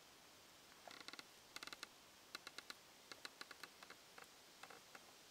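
A series of short creaks and ticks from a homemade bushcraft chair of lashed logs as it takes a person's weight when she sits down and leans back.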